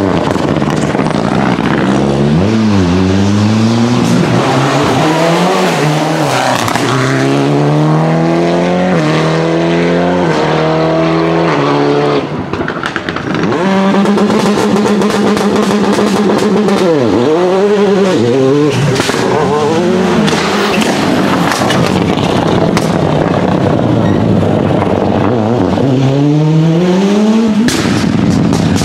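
Rally cars' engines revving hard and shifting up through the gears as they accelerate away, the pitch climbing and dropping again with each shift. Sharp exhaust pops and crackles break in, most thickly a little past the middle and near the end.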